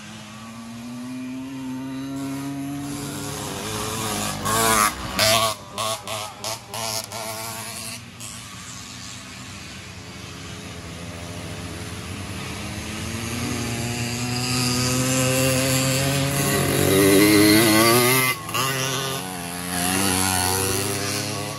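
Small two-stroke motorized bicycle and moped engines racing by, revving up and down in pitch. About five seconds in, one engine's note cuts in and out several times in quick surges, and near the end a louder engine builds up and passes.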